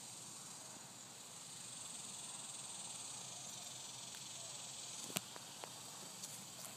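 Quiet outdoor background: a faint, steady hiss, with a few small clicks about five seconds in.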